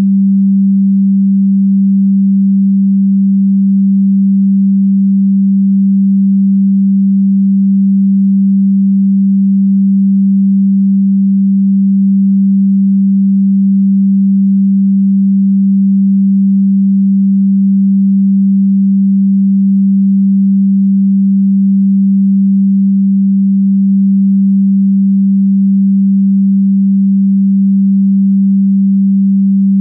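A single loud, steady, pure electronic sine tone, low in pitch (about the G below middle C), holding one unchanging pitch and level throughout.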